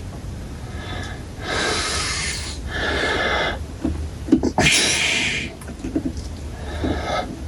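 A person breathing out heavily close to the microphone, several breathy bursts about a second each, with a few small clicks near the middle.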